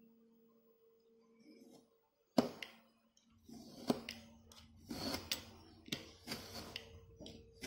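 Clicks, knocks and short scrapes of a snap-off utility knife and steel ruler being handled against a leather strip on a cutting mat. A sharp loud click comes about two and a half seconds in, followed by a run of irregular clicks and short scrapes.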